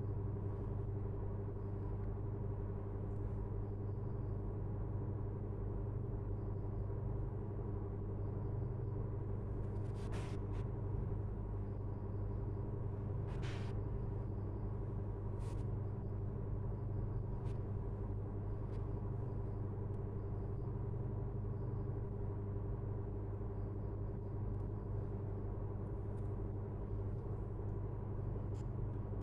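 Steady low hum throughout, with a few faint clicks about ten and thirteen seconds in.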